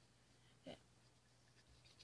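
Near silence: room tone, with one brief faint handling sound a little after half a second in.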